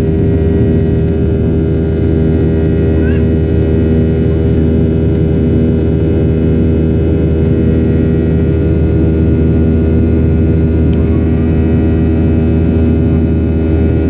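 Boeing 737-800 cabin drone from its CFM56 jet engines: a loud, steady hum made of several fixed tones over a low rumble. The passenger hears it as a strange engine noise he had not met before.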